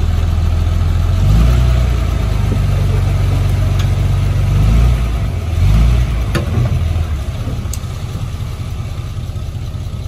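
Komatsu D20P crawler bulldozer's diesel engine working under load. It revs up just over a second in, surges twice around five and six seconds, then eases back to a lower steady run after about seven seconds, with a few sharp clanks.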